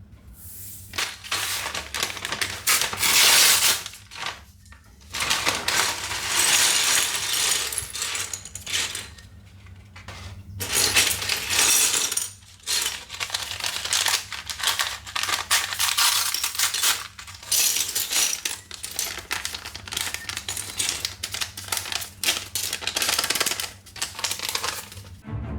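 Small plastic LEGO pieces clattering and rattling in uneven stretches, with short pauses between them.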